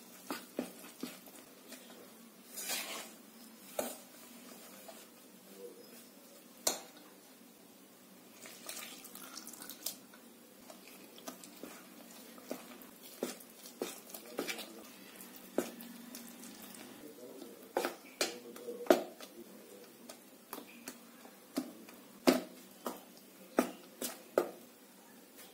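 Metal spoon stirring gram-flour (besan) batter in a stainless steel bowl: irregular clinks and scrapes of spoon against steel, with a wet sound of flour and water being mixed.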